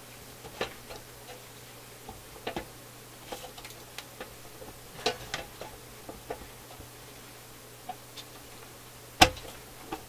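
Irregular light clicks and taps of a metal bottom plate being handled and lined up against a vacuum-tube radio's steel chassis, with one sharp knock about nine seconds in.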